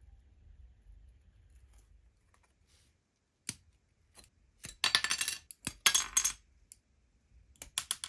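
Small hard objects clinking and rattling against a hard surface. A few sharp clicks come first, then two short bursts of rattling around the middle, then more clicks near the end.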